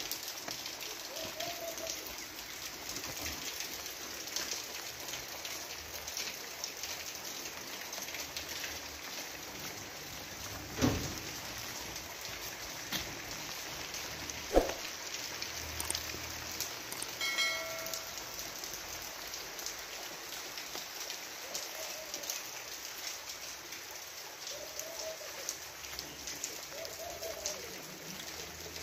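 Steady rain falling, with many single drops striking close by. Two sharp knocks come about a third of the way and halfway through, the second the loudest sound, and a few short calls are heard over the rain.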